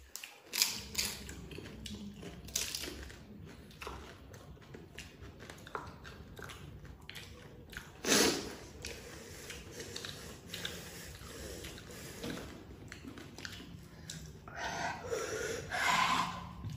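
People biting and chewing food, pani puri (golgappa) among it, with irregular sharp bites and mouth sounds.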